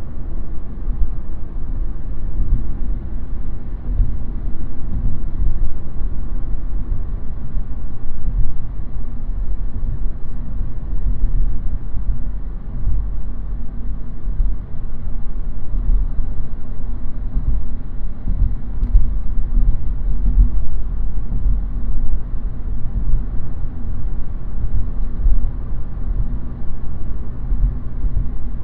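A car driving along city roads: a steady low rumble of tyres and engine, with faint humming tones that come and go.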